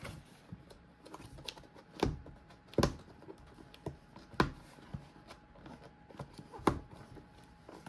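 Keyboard packaging being unpacked by hand: scattered light taps and rustling, with four sharp knocks as pieces are lifted out and set down.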